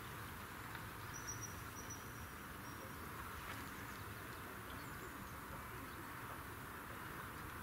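Faint, steady outdoor background noise, with a few short, high, thin chirps between about one and three seconds in.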